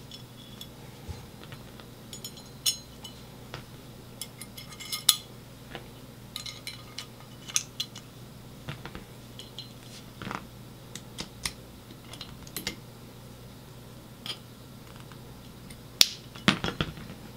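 Light, irregular metallic clicks and clinks of a Glock 17's steel slide and its small internal parts being handled and fitted back together by hand, with a few sharper clicks near the end.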